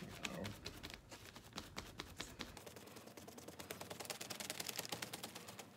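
A sponge dabbing paint onto a canvas in quick repeated taps, several a second, growing busier towards the end.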